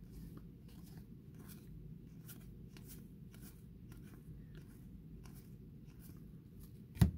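Baseball trading cards being flipped through by hand, each card sliding off the stack with a soft flick, about two a second. One loud thump near the end.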